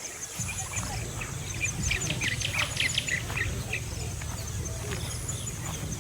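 A flock of wetland birds calling together: many short, overlapping squawks and chirps, busiest around the middle, over a steady low rumble.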